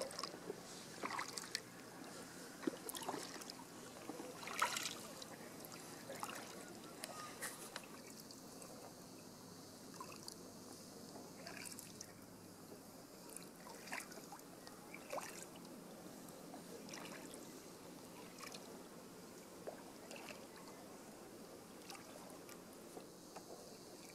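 Double-bladed kayak paddles dipping into calm water: light, irregular splashes and drips off the blades, louder and more frequent in the first several seconds, then softer.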